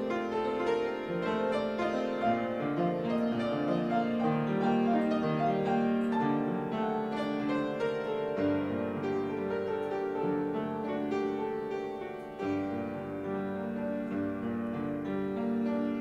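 Piano music with slow, held notes and chords.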